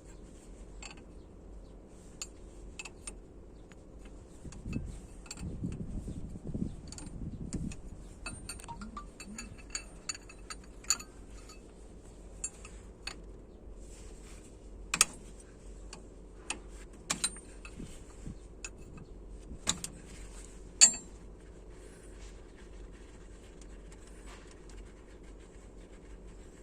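Metal parts of a JCB excavator hydraulic control valve clinking and knocking as they are handled: scattered sharp clicks, a few with a short metallic ring, and several louder single knocks in the second half. A low rumble runs for a few seconds near the start, over a faint steady hum.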